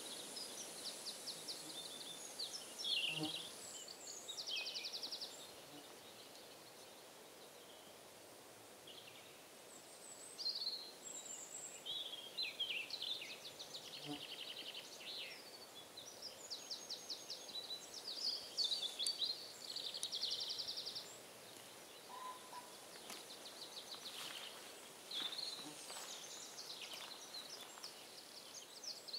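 Woodland birdsong: several small birds singing and calling, with chirps and fast trills over a faint steady hiss.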